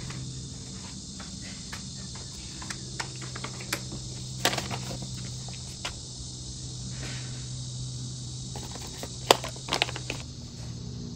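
Steady workshop background: a low hum with a high hiss over it, the hum stopping about ten seconds in. Over it come a few light clicks and crinkles from a plastic pigment bag and containers being handled on the bench, the sharpest about nine seconds in.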